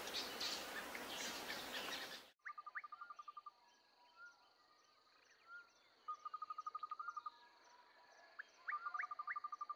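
A louder rushing noise cuts off abruptly about two seconds in, leaving faint insect ambience. Bouts of rapid, evenly pulsed trills come and go, with a steady thin high-pitched whine and a few short chirps.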